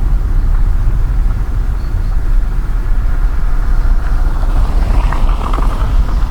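Car driving, heard from inside the cabin: a steady low rumble of engine and tyres on the road. About five seconds in, a brief band of higher, grainy noise rises over it.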